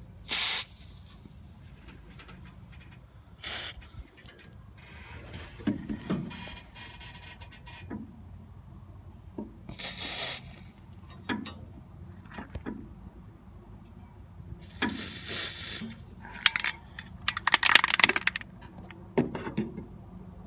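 Aerosol spray grease being applied to a car's hood hinges in short hissing spurts, about five of them, the longest near the end, with light handling knocks between.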